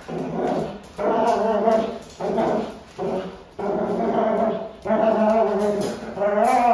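Dog vocalising in about seven short bursts, barking, whining and growling while working a trainer's bite sleeve.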